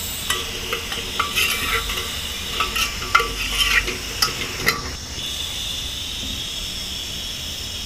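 Sliced onions sizzling in hot oil in an aluminium pressure cooker while a metal ladle scrapes and knocks against the pot as they are stirred. The clinks stop about five seconds in, leaving a steady sizzle.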